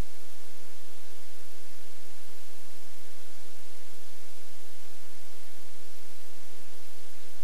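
Steady loud static hiss with a constant electrical hum underneath and a few faint steady tones, unchanging throughout.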